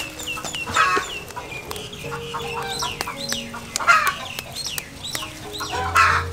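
Chickens clucking, with repeated short high chirps throughout and louder clucks about a second in, near four seconds and near six seconds.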